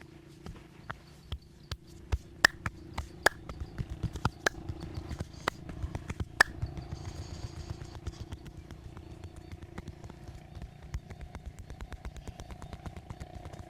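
Massage strokes: several sharp slaps on skin in the first half, giving way to rapid, even tapping. A steady mechanical hum runs underneath.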